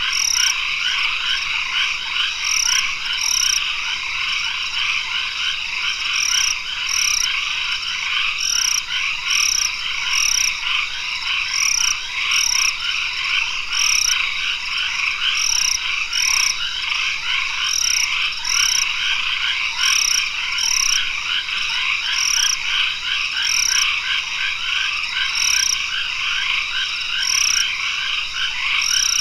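Tropical forest dusk chorus, dominated by many frogs calling densely together. Over it run a steady high drone and short high notes repeating about once a second, often in pairs.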